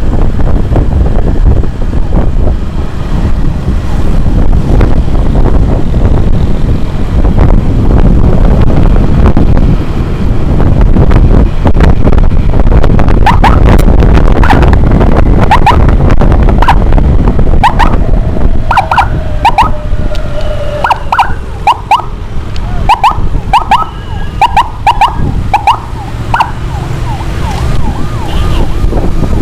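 Loud low road and wind rumble of a motorcycle riding at speed. From about halfway through, a rapid irregular series of short siren chirps, used to clear traffic for an ambulance escort.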